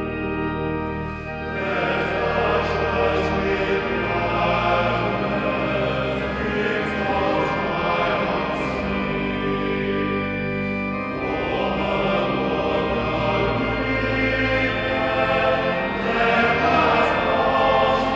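Choral music: a choir singing slow, sustained chords that swell in places.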